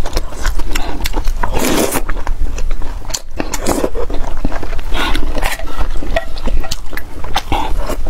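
Close-miked mukbang eating: wet chewing and slurping of mouthfuls of rice in braised-pork broth, with many short clicks of the wooden spoon against the pot.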